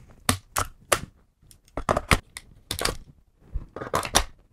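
Sharp plastic-and-metal clicks from a Silverback MDR-X airsoft bullpup rifle's magazine releases being worked and its magazine being unlatched and seated. There are about ten clicks in four quick groups.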